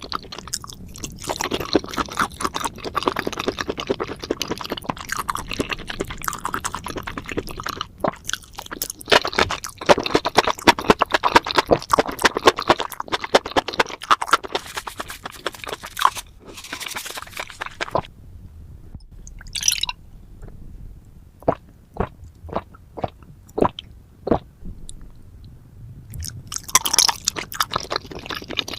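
Close-miked wet chewing of spicy seafood and mushrooms, a dense run of smacks and crackles that thins to a few separate clicks for several seconds past the middle, then picks up again near the end.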